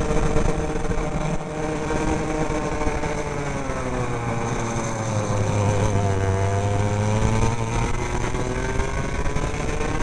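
Racing kart engine running on track, heard from the driver's helmet: the engine note sinks over several seconds as the kart slows for a corner, bottoms out about six seconds in, then rises again as it accelerates out.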